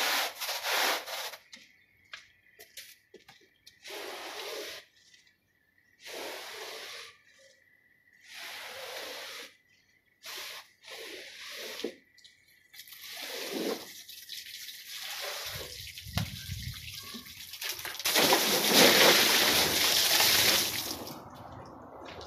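A stiff push brush scrubbing a soap-foamed rug in short wet strokes with pauses between them, then a squeegee drawn over the wet pile, pushing off the dirty foam. The longest and loudest wet scraping comes in the last third.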